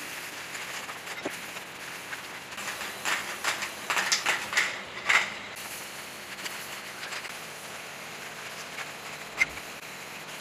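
Aerosol spray-paint can hissing in a string of short, uneven bursts in the middle, then a single sharp click near the end.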